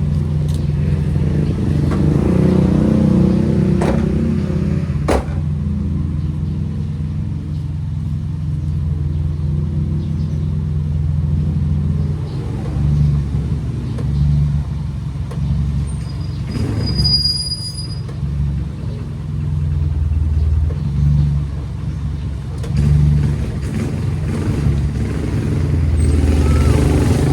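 Nissan Sentra B14's four-cylinder engine idling shortly after a cold start, a steady low hum that swells a little now and then. Two sharp clicks come about four and five seconds in.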